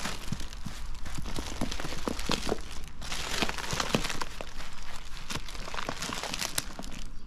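Cellophane wrapping on a deflated inflatable kayak crinkling and crackling as it is handled, with many irregular small clicks.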